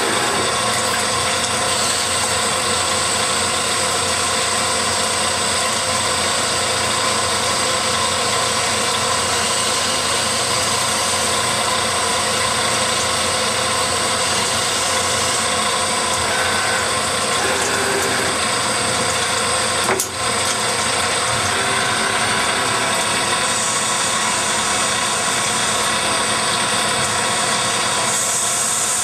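Retrofitted Hardinge HXL CNC lathe running a cutting cycle: a steady machine whir of spindle and drives, with flood coolant pouring over the work, and one sharp click about two-thirds of the way through.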